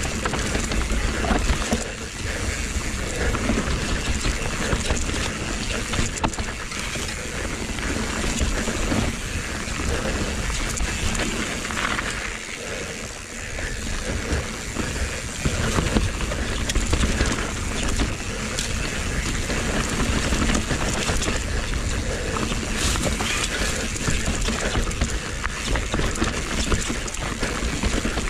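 Mountain bike rolling fast down a dirt singletrack: knobbly tyres on dirt and roots, with the chain and frame rattling over the bumps, and wind rushing over the microphone. The noise eases briefly about halfway through.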